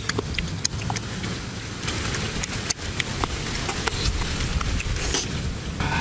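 Scattered sharp clicks and crackles of people chewing and tearing grilled chicken apart by hand, over a steady low rumble.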